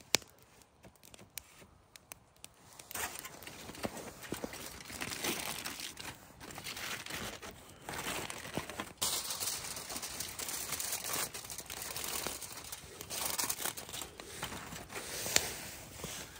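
A couple of light knocks at the start as peeled wooden poles are set down, then aluminium foil crinkling and rustling as it is spread and pressed over a pan on the campfire, busiest in the second half.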